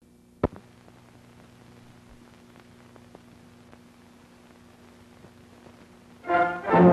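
Old film soundtrack hiss and hum with scattered faint crackles and one sharp pop about half a second in. Orchestral music with brass comes in loudly near the end.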